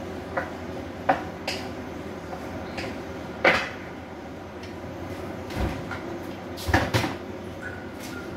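Wooden spatula knocking and scraping against a frying pan as spaghetti is tossed, with a sharper knock about three and a half seconds in as it is set down in the pan. A few more knocks follow over a steady background hum.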